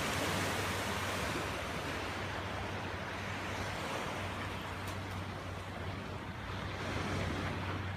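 Ocean surf breaking and washing on the beach, a steady rush of waves.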